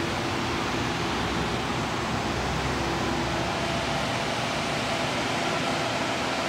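Steady, even rushing noise at a constant level, with a faint hum coming in near the end.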